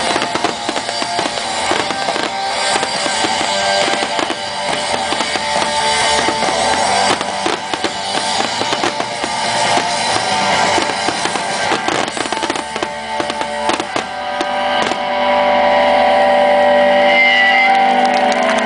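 Rock music with a drum kit and guitar playing over loudspeakers, mixed with the rapid bangs of a fireworks finale. The bangs stop near the end while the music goes on.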